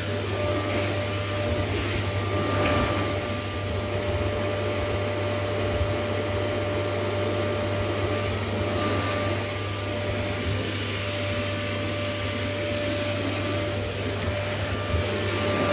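Vacuum cleaner running steadily, a constant motor whine over a whoosh of airflow, as it cleans a spring mattress.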